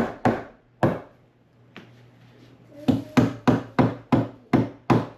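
A hammer beating a piece of wooden stud into a tight fit in the wall framing. Two or three blows come first, then a short pause, then a steady run of about three blows a second.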